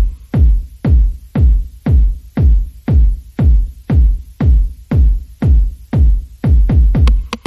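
Electronic background music with a heavy, deep kick drum beating steadily about twice a second.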